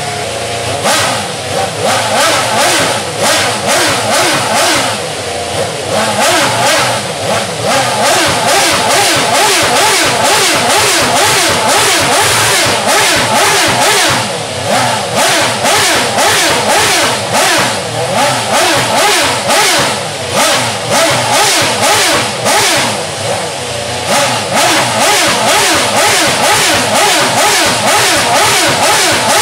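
Renault R28 Formula 1 car's 2.4-litre V8 revved over and over while stationary, in quick sharp blips that rise and fall a time or two each second. It idles for about the first second before the blipping starts.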